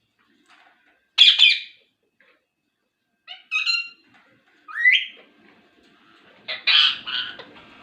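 Ringneck parrot squawking: four short, harsh calls a second or two apart, the first and last the loudest.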